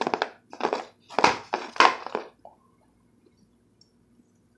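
Rustling and crinkling of plastic card holders being handled while one card is swapped for the next, a few short bursts in the first two seconds or so.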